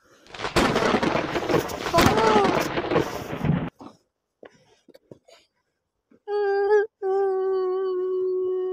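A loud, noisy burst of sound with a wailing voice sweeping up and down inside it, for about three seconds, cutting off abruptly. After a short gap comes a long, steady held note, as of a mournful voice or instrument, broken once briefly.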